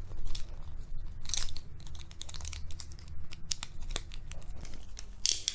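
Hard plastic toy fishing rod being handled close up: irregular small clicks and rustles as the tangled line is worked at its reel, with a denser cluster of clicks about a second and a half in and again near the end.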